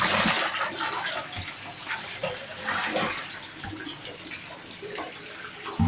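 Water splashing and churning in a fish pond: a loud burst of splashing at the start, then scattered splashes that die down to a lower wash.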